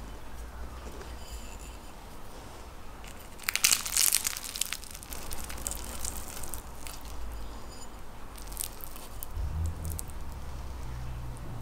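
A fork cutting down through a piece of baklava, the crisp, syrup-glazed phyllo layers crackling and crunching. The cut is loudest about three and a half seconds in, followed by a few lighter crackles as the piece is broken apart.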